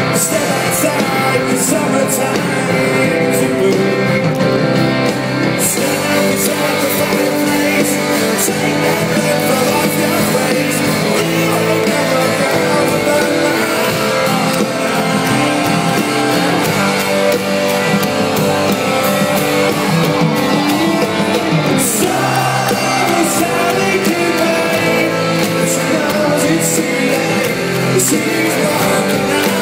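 Live rock band playing a song, with guitars and singing.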